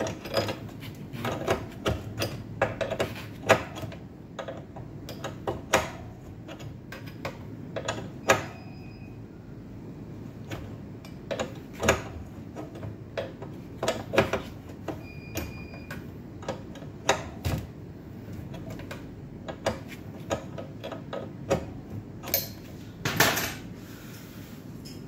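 Open-end spanner clinking and knocking against the metal fittings of a Melag 31B autoclave in irregular sharp clicks while the fittings are worked loose or tightened.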